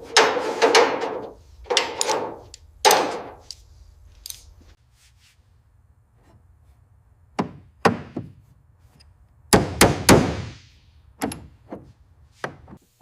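A series of knocks and thuds, about a dozen, irregularly spaced, with a quiet stretch from about five to seven seconds in; the loudest come in the first three seconds and around ten seconds in.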